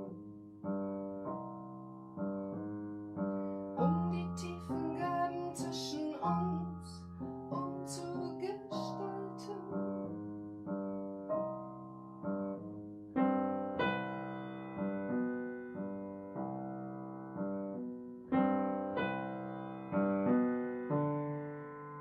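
Upright piano playing a slow, calm solo passage without singing: notes and chords struck about once or twice a second, each ringing and fading. Fuller, louder chords come in about thirteen seconds in.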